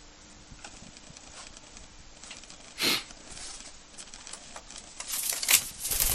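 A pet cockatiel moving about: scattered light clicks and scratches, a short loud rush of noise about three seconds in, and a denser run of rustling and clicking near the end.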